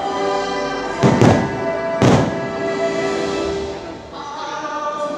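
Fireworks show music with singing, played loudly, with firework bursts booming through it: two close together about a second in and another about two seconds in.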